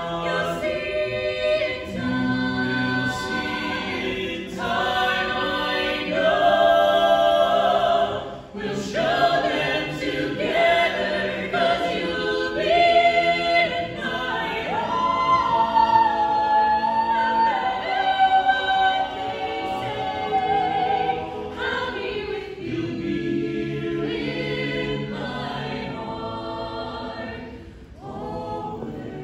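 A mixed a cappella vocal ensemble of men's and women's voices singing in close harmony, with held chords and a long high note from the top voice about halfway through.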